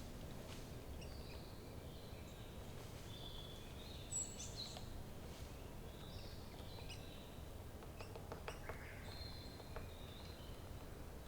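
Several wild birds calling and singing in short, high whistled phrases and chirps, over a steady low background rumble.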